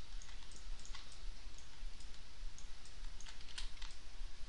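Irregular clicks of a computer mouse and keyboard keys, over a steady low hum.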